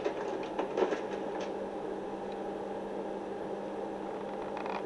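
Steady room hum and hiss in a lecture hall, with a few faint clicks in the first second and a half and another near the end.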